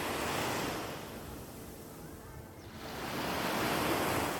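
Sea waves washing onto a beach in two surges: one ebbs about a second in, and the next builds up toward the end.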